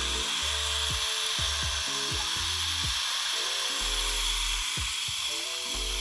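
Background music with bass notes, sustained chords and a repeated falling drum sweep, over a steady hiss.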